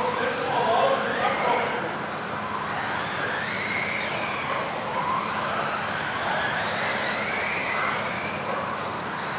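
Several modified-class electric off-road RC cars racing together. Their motors whine in overlapping tones that keep rising and falling in pitch as the cars accelerate and brake.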